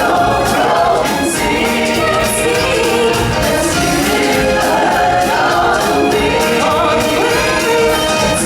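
Loud live show music with a group of voices singing over a full band.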